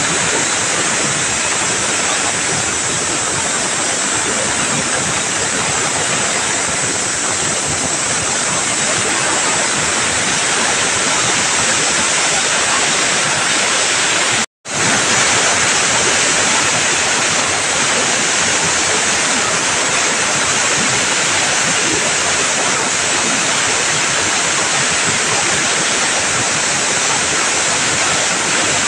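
Steady, loud hissing rush of a jet from an industrial machine-cleaning tool, such as a spray or air blast. The sound breaks off for an instant about halfway through and then resumes.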